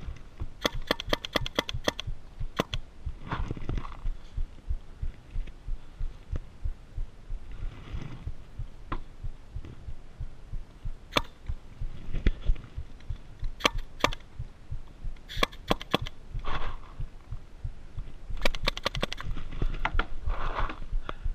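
Paintball markers firing in rapid strings of sharp pops, several bursts with pauses between them, over a constant low thumping rumble.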